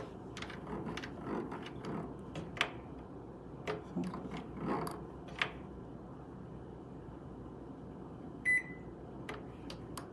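Clicks and taps of buttons being pressed on a Galanz retro microwave's control panel, with one short electronic beep about eight and a half seconds in.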